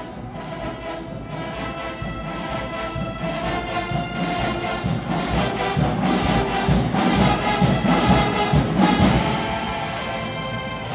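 Marching band of brass, saxophones and sousaphones playing a gospel arrangement together. The band swells louder to a peak about eight seconds in, then eases back near the end.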